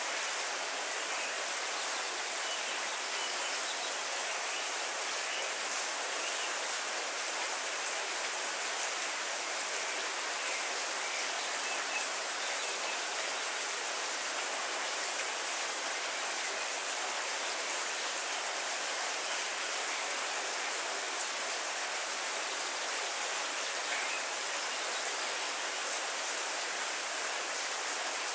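Heavy rain falling steadily on trees and foliage, an even hiss.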